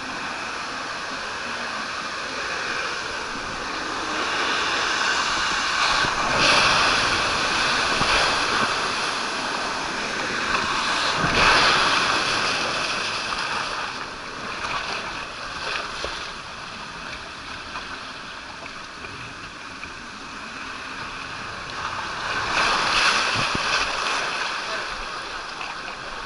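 Rushing and splashing water around an inflatable tube sliding down a water-slide flume, close to the camera. It swells louder several times as the tube surges through the run and into the splash pool.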